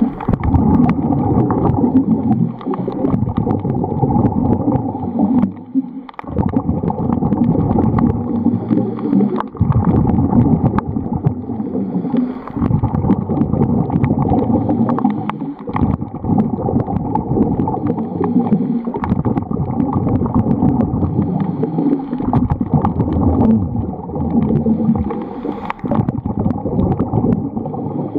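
Scuba diver's breathing heard underwater: a gurgling rush of exhaled bubbles and regulator airflow that rises and falls in a steady cycle about every three seconds.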